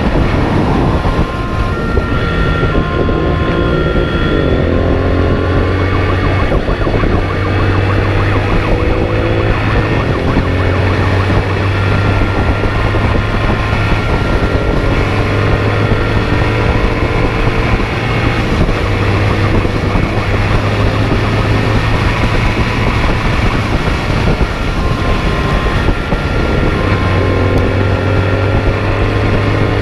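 Police motorcycle engine at speed, rising in pitch again and again as it accelerates through the gears, over heavy wind and road noise. A two-tone siren alternates between two high notes on and off.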